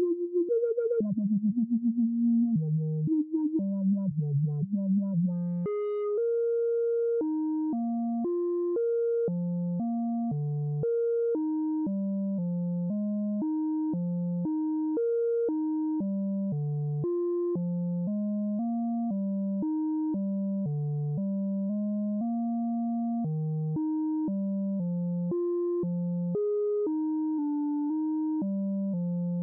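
Software modular synthesizer (VCV Rack) playing a sequenced pattern of short, plain-toned notes, about two a second, jumping between low and higher pitches. It opens with a few seconds of fast, stuttering, uneven tones before the steady sequence settles in.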